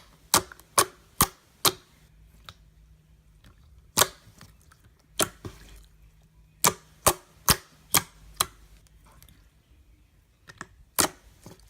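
Glossy slime being squeezed and poked by hand, giving sharp clicks and pops in short runs of a few a second, with pauses between runs.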